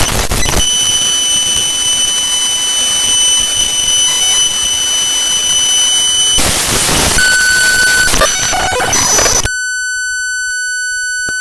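Raw binary data of HandBrake's hb.dll library played back as audio: loud harsh static laced with steady high whistling tones. Near the end the static cuts out, leaving a clean chord of steady high tones over a faint low hum.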